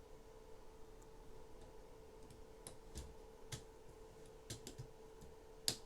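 Lego Technic plastic parts clicking and tapping as pieces are fitted together by hand: a few scattered small clicks in the second half, the loudest just before the end, over a faint steady hum.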